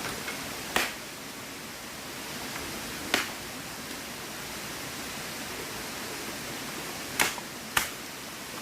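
Steady rushing of water, with four short sharp knocks: one about a second in, one about three seconds in, and two close together near the end.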